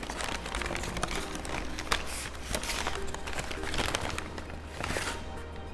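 A paper McDonald's fries bag rustling and crinkling in several bursts as it is folded shut and shaken to coat McShaker fries in their seasoning.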